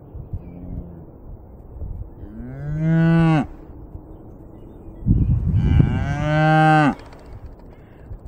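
Scottish Highland cattle mooing twice, each call about a second long and rising in pitch, roughly three seconds apart. A short low rumble comes just before the second moo.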